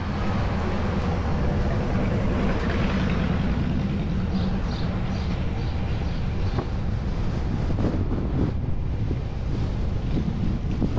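Wind rumbling on a car-mounted camera's microphone over the steady road noise of a Toyota RAV4 driving.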